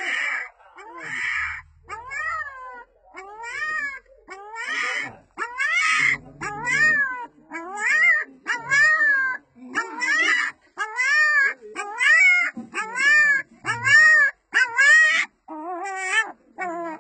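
Young puppy crying: a long run of high whining cries, each rising then falling in pitch, about one and a half a second, rougher and noisier in the first couple of cries.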